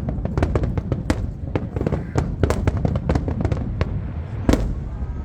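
Aerial fireworks bursting in quick succession: many sharp cracks and bangs over a low rumble, with one louder bang about four and a half seconds in.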